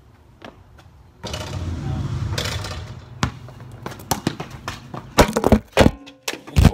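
A basketball hits the phone that is filming, followed by a quick run of knocks and clattering as the phone is knocked about, with a hard knock just before the end. Earlier, a couple of seconds of rushing noise.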